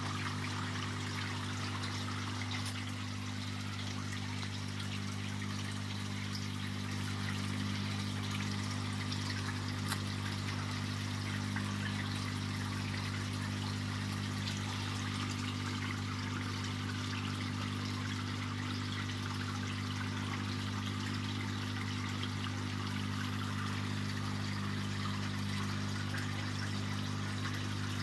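Water trickling and splashing steadily in a shrimp-farm tank, over a steady low electric hum from the tank equipment.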